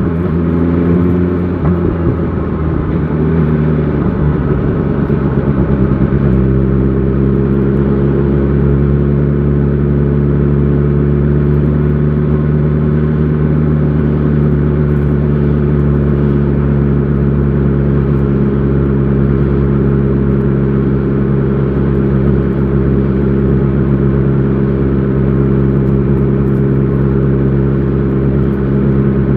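BMW S1000 XR motorcycle engine while riding. The engine note changes over the first few seconds, then holds a steady pitch at constant speed.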